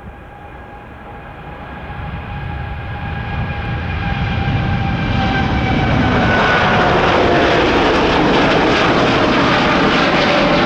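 Boeing 787-8 turbofan jet engines at takeoff: a whine of steady tones, then the roar swells over about four seconds and holds loud.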